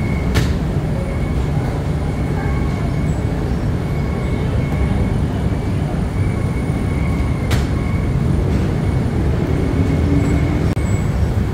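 Steady low mechanical rumble with a faint, steady high whine, broken by two sharp clicks, one just after the start and one about two-thirds of the way through.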